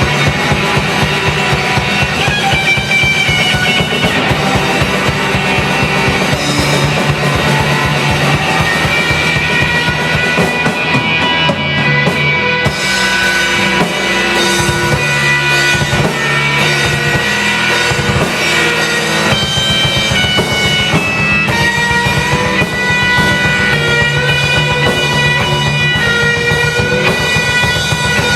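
Heavy metal song: distorted guitars over fast, dense drumming, with the bass dropping away for a few seconds in the middle.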